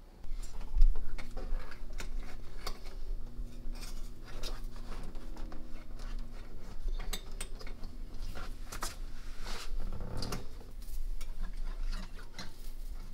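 Scattered clicks, taps and light rattles of a plastic power strip, cables and thin wire being handled as the strip is wired up under a desk, with a louder knock about a second in.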